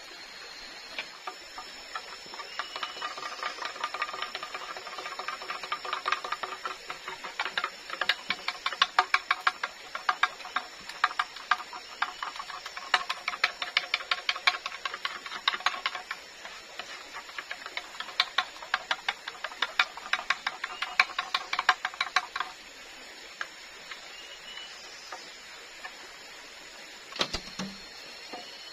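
Metal spoon scraping the inside of a hollow bamboo tube in quick repeated strokes, several a second, each stroke making the bamboo ring; the scraping stops suddenly about 22 seconds in. A single dull knock follows near the end.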